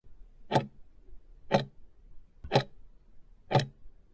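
Clock ticking sound effect, one sharp tick each second, four ticks in all, counting off the time given to answer a test question.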